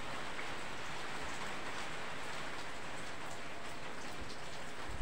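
Steady rain falling on wet ground and puddles: an even hiss with scattered faint drop ticks.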